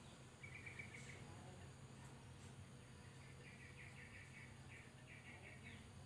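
Ruby-throated bulbul (kutilang emas) giving faint runs of rapidly repeated high notes: a short trill about half a second in, then several chattering runs in the second half.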